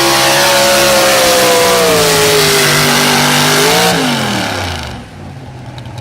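Super stock 4x4 pulling truck's engine running at full throttle, its pitch slowly sagging under load. About four seconds in, the throttle is chopped and the revs fall away quickly to a much quieter low rumble.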